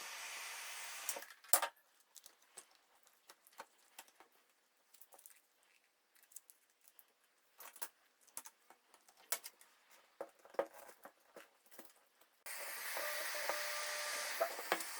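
Heat gun blowing with a steady hiss, switched off about a second in, softening the adhesive under a tablet's digitizer glass. Then scattered small clicks and taps of prying tools working at the tablet's screen edge. The heat gun starts again about twelve seconds in.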